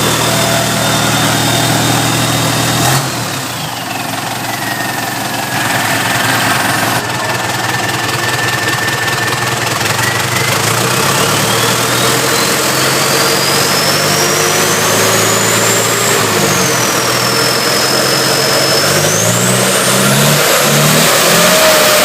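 MWM X10 diesel engine on a test run: it drops from a fast idle to a lower idle about three seconds in, then is slowly revved up, eased back, and revved up again near the end. A high whine rises and falls with the revs.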